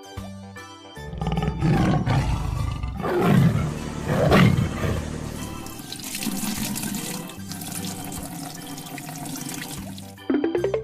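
Cartoon sound effects over background music: two loud roars in the first half, then a steady rushing hiss like water, and a quick rising boing near the end.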